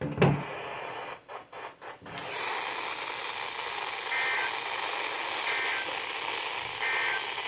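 Weather radio receiver hiss with a sharp click and a few brief dropouts in the first two seconds, then three short two-tone digital data bursts about a second and a half apart: the EAS SAME end-of-message bursts that close an alert broadcast.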